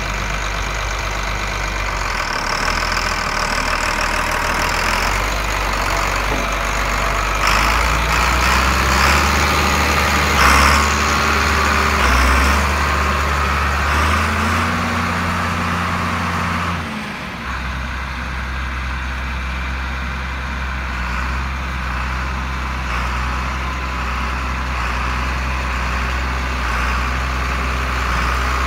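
1984 John Deere 4850 MFWA tractor's turbocharged six-cylinder diesel running as the tractor is driven. It grows louder for about ten seconds from roughly a quarter of the way in, drops suddenly about two-thirds through, and then runs steadily.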